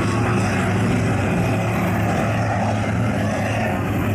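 Mud-bogging jeep's engine running at a steady note under load as it churns slowly through deep mud.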